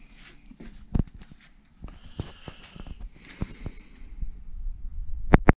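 Small handling noises: scattered light clicks and taps with soft rustling, a sharper tap about a second in, and two sharp knocks near the end.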